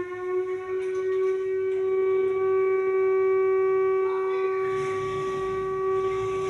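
Built-in siren of a Toshiba GA 400 public address amplifier, sounding as one steady, held wailing tone. It is sounded to signal iftar, the end of the day's fast.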